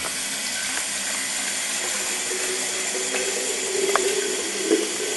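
Bathroom faucet water starting suddenly and running steadily into a glass coffee carafe held under the tap, rinsing it out. A single light knock about four seconds in.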